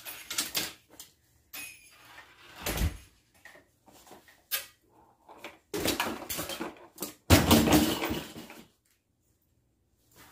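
A door shutting with a low thud about three seconds in, then clunks, rattles and rustling as a plastic pet carrier is handled. The loudest stretch comes near the end.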